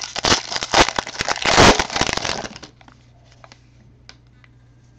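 Foil trading-card pack wrapper crinkling loudly as it is torn open, stopping a little over halfway through; a few faint clicks of the card stack being handled follow.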